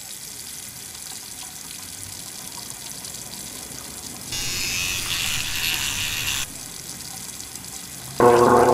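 Bathroom sink tap running with a steady hiss; the flow gets louder and brighter for about two seconds in the middle. Near the end a short, loud pitched sound cuts in.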